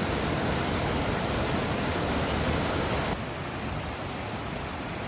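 A flooded river rushing, a steady noise of fast water that drops to a quieter rush about three seconds in.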